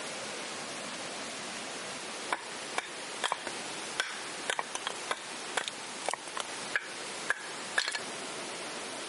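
Campfire crackling: a run of irregular sharp pops and snaps over a steady rushing hiss.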